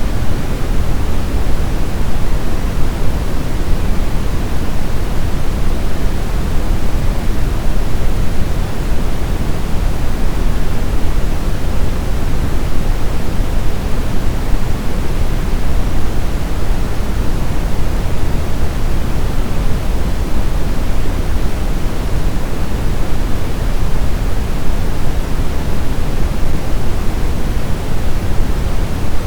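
Steady pink-style noise, a continuous even hiss weighted toward the low end, without change, played as baby sleep sound.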